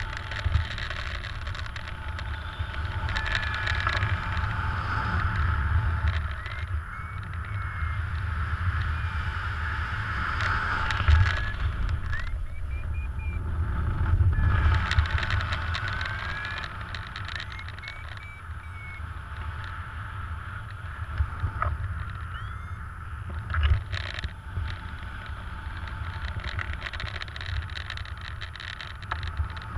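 Wind from the airspeed of a paraglider in flight, rushing and buffeting over the camera microphone, with gusts that swell and fade. Short chirping tones come and go behind it.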